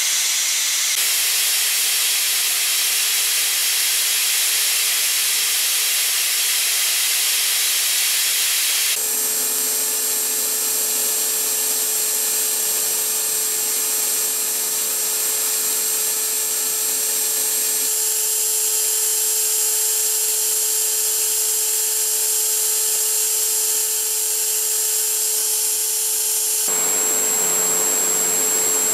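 Hwacheon UH500 vertical machining center's built-in motor spindle turning at 26,000 rpm while a tiny ball end mill cuts a metal die: a steady high hiss with a thin whine under it. The sound shifts abruptly three times as the cut changes between roughing and semi-finishing passes.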